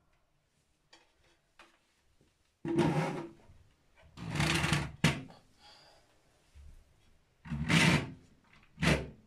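Bathroom scale slid and scraped across a tile floor in four short pushes, first by hand and then by foot, as it goes under a cabinet, with a sharp knock about five seconds in.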